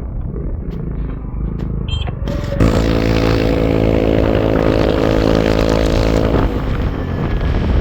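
Vehicle engine running while driving, with rumbling road and wind noise; about two and a half seconds in, a steady engine drone at an even pitch comes in and holds for about four seconds before dropping away.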